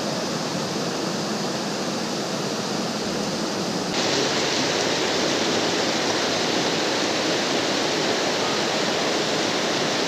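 Rushing water of a fast mountain river, a steady full hiss. About four seconds in the hiss turns brighter and slightly louder.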